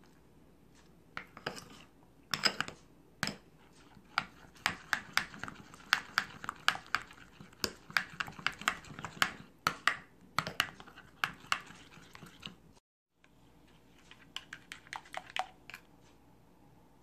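Metal utensil stirring thick chocolate and cream in a glass bowl: quick, irregular clicks and taps of metal against the glass. The sound stops briefly about 13 seconds in, then a few more taps follow.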